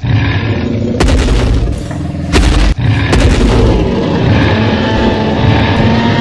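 Loud, deep booming rumble of a dubbed T. rex sound effect, with heavy thuds about one and two and a half seconds in.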